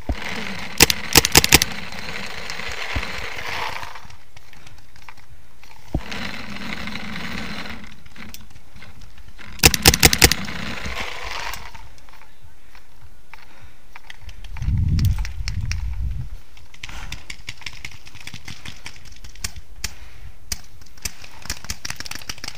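Paintball marker firing in rapid bursts of about five shots each, one burst about a second in and another around ten seconds, with scattered fainter pops of shots later on. A short low rumble comes around fifteen seconds.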